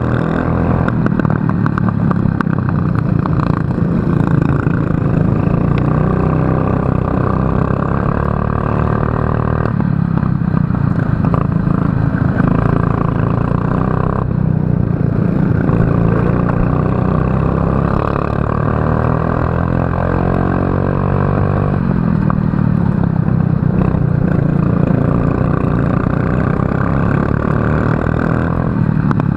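Racing kart engine at full race pace, its pitch rising as the kart accelerates and dropping suddenly several times as the driver lifts off for corners.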